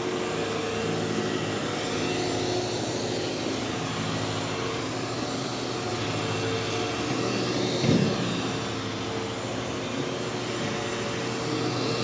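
Upright vacuum cleaner running steadily on carpet: a constant motor hum with a hiss of air, and a short louder bump about eight seconds in.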